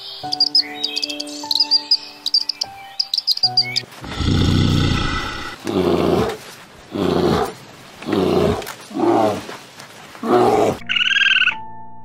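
Bird chirping rapidly over soft background music for the first few seconds. Then a brown bear growls and roars in six loud, rough bursts. Near the end a rapid croaking call starts, with the music back underneath.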